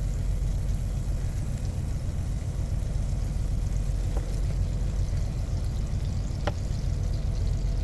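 Steady low hum of a big rig's idling engine, with two faint clicks about four and six and a half seconds in.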